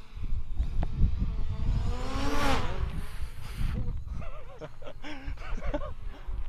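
A DJI quadcopter drone flies close past overhead about two seconds in, its propeller whine rising and then falling in pitch over a steady low rumble. A man then laughs.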